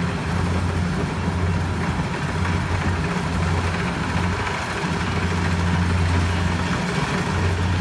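Kubota combine harvester's diesel engine running at a steady speed, a constant low drone.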